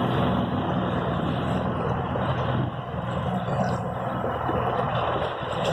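Boat's outboard motor running steadily, a low even engine hum over a broad hiss.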